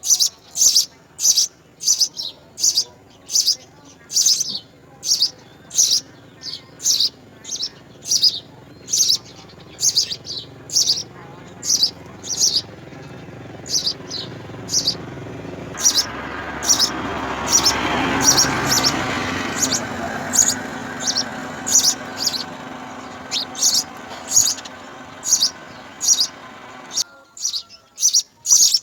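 House sparrow chirping over and over, short high chirps at about two a second. A background noise swells up in the middle, peaks, and stops suddenly a couple of seconds before the end.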